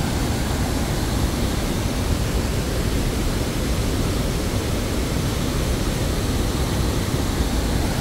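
Steady rushing of a large waterfall: an even, unbroken noise of falling water.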